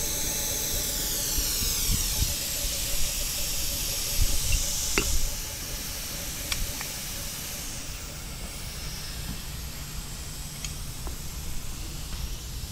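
DeVlieg Micropoint tool grinder running: a steady hiss with a faint high hum. About five seconds in there is a click, and the hum and much of the hiss drop away, leaving a quieter hiss.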